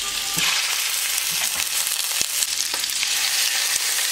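Saffron-marinated chicken drumsticks sizzling in hot oil and butter in a stainless steel pan as more pieces are laid in; the sizzle grows louder about half a second in. A few light knocks come through near the middle.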